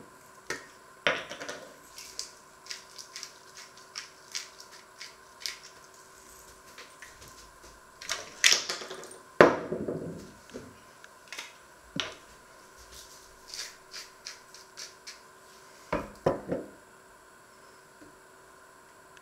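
Scattered light taps, clicks and knocks of hands handling food, utensils and a shaker on wooden cutting boards while sandwiches are assembled, with a few louder clatters about halfway through and a pair of duller thumps near the end.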